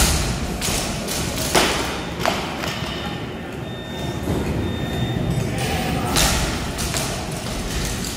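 Loaded barbells with bumper plates thumping on the gym floor as athletes deadlift: a heavy thump right at the start, then several more at irregular intervals, over background voices.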